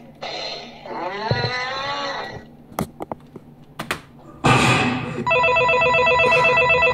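A high, warbling cartoon parrot voice from the Talking Pierre app, gliding up and down for about two seconds, then a few sharp clicks. Near the middle a loud noisy burst starts, followed by a steady, rapidly pulsing electronic ring like a telephone bell. This ring is the meme video's stand-in sound, playing from device speakers.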